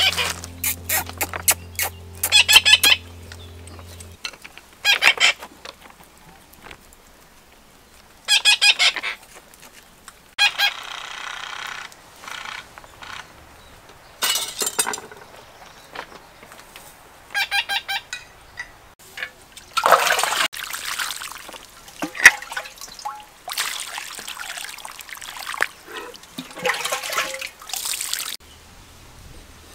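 Poultry calling in short, repeated bursts through the first half. Then water is poured and splashes over a plucked duck carcass on a stone for several seconds, with one sharp knock partway through.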